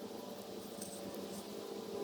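A steady, faint hum with an even hiss, unchanging throughout.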